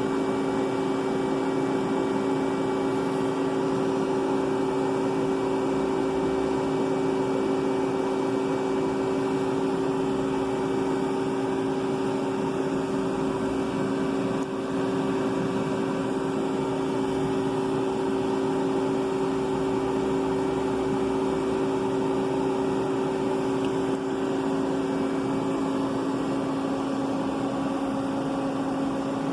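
Small electric motor of a skimmer-type oil collector on a CNC coolant reservoir, running steadily with an even two-note hum.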